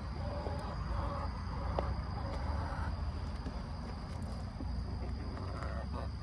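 A steady, high-pitched insect trill, typical of crickets, over a low rumble.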